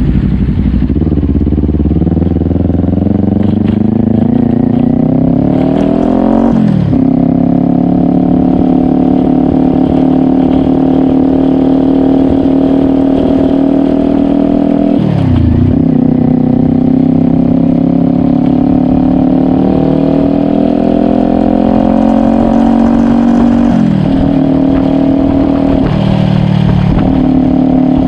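Kawasaki Ninja 400's parallel-twin engine under way: the revs climb for about six seconds and drop sharply as it shifts up, then it runs at fairly steady revs, with another sharp dip about halfway through and a smaller one near the end.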